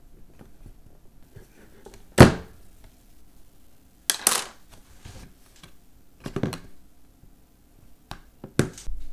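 Sharp plastic knocks and clicks on a tabletop while a tempered-glass screen protector is fitted to an iPhone: the loudest a single knock about two seconds in, then a clatter about four seconds in as the plastic installation frame comes off the phone, another knock around six seconds, and two clicks near the end as a plastic card is pressed over the glass.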